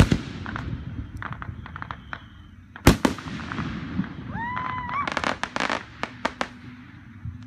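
Aerial fireworks shells bursting: a loud boom right at the start and another about three seconds in, each trailed by a low rumbling echo. A quick cluster of sharp pops follows around five to six and a half seconds in.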